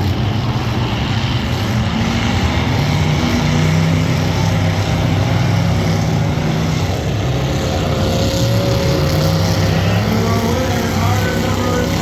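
Demolition derby cars' engines running loudly, their pitch rising and falling a little.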